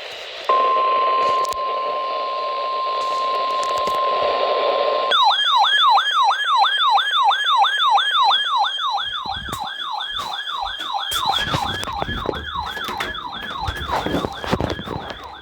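Emergency Alert System alert over weather radio: a steady single-pitch warning tone, the NOAA Weather Radio 1050 Hz alarm tone, over radio static. About five seconds in it switches to a siren-like electronic alarm sweeping up and down about three times a second, with scattered clicks and thumps in its later part.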